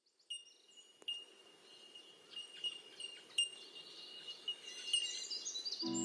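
High chimes struck several times, each note ringing on, with birds chirping in from about four and a half seconds. Music with steady low notes comes in near the end.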